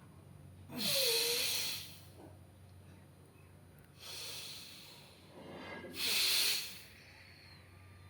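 A person breathing hard and audibly in a yoga breathing exercise: three rushing breaths about a second long, the first and last loudest, the second softer.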